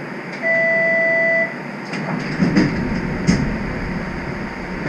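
Aboard a Toronto TTC streetcar: a loud, steady electronic beep lasting about a second, then a run of clunks and rattles from the streetcar's body and running gear over a steady hiss.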